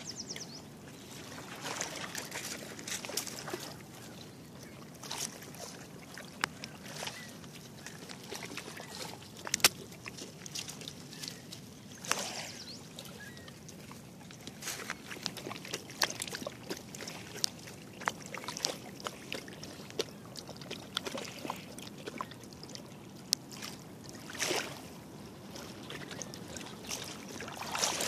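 Small river waves lapping and sloshing at the shoreline, with scattered sharp clicks and crackles throughout, one louder click about ten seconds in.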